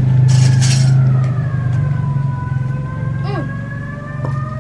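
A siren wailing slowly, its pitch falling over about two seconds and then rising again, over a loud steady low hum.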